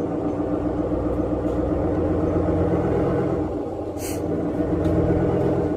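Truck engine running at low revs while the truck is backed slowly up to a trailer, swelling slightly twice, with a brief hiss about four seconds in.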